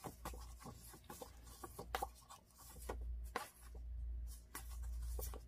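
Photo prints and paper pieces being handled and slid about on a craft table: scattered light taps, scrapes and rustles, over a low rumble that swells and fades.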